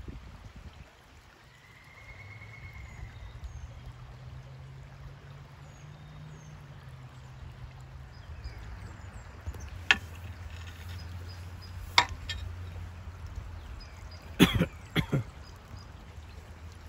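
Shallow creek water trickling over stones, with sharp clicks about two-thirds of the way through and a man coughing twice near the end.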